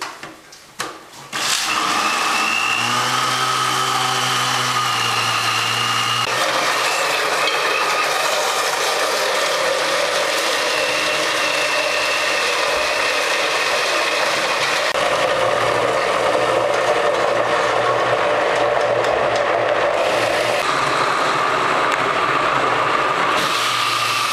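Countertop blender switched on about a second in after a few clicks, then running steadily as it purées basil pesto, its motor tone shifting a few times as it works.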